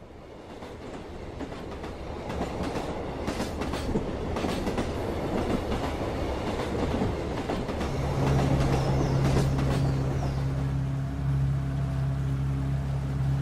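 Passenger train running on the rails, heard from inside the carriage: a steady rolling rumble with wheel clicks over rail joints. It fades in at the start, and a steady low hum joins about eight seconds in.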